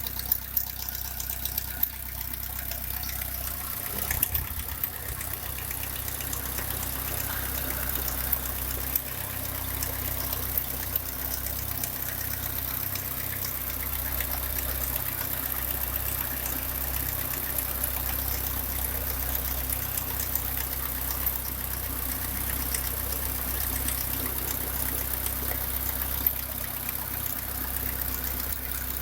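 Opel Astra F's C16SE 1.6-litre four-cylinder engine idling hot, with a repeated 'clac clac clac' clacking over the steady running that appears once the engine is warm, though its oil and coolant levels are fine.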